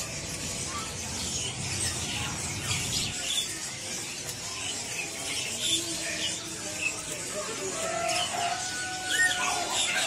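Many caged songbirds chirping and calling at once, a dense scatter of short high chirps with a few longer whistled notes near the end.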